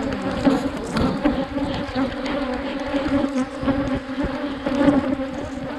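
Africanized honey bees buzzing in a mass around an open hive, a dense, steady hum that holds its pitch. Scattered light clicks and knocks sound over it.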